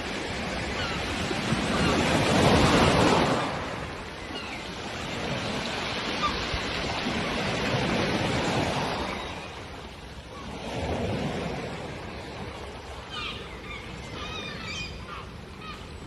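Sea waves breaking and washing up a pebble beach in three surges, the loudest about two to three seconds in. Gulls call briefly near the end.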